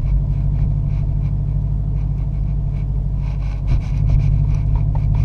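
Subaru's flat-four engine pulling in second gear, a steady low drone heard from inside the cabin. Just before four seconds in it dips briefly, then runs a little louder.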